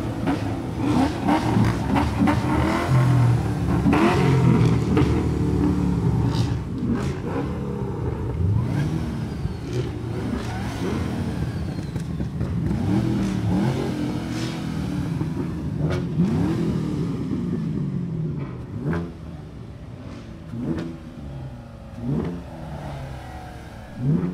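Car engine revving, its pitch rising and falling again and again, louder in the first half. Near the end it gives a few short, sharp rev blips about every second and a half to two seconds.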